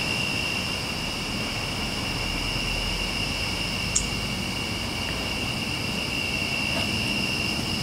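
Steady chorus of night insects, crickets trilling on one constant high pitch, over an even background hiss. One short sharp click about four seconds in.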